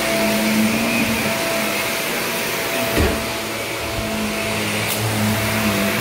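Upright bagless vacuum cleaner running steadily as it is pushed over carpet, with a single thump about three seconds in.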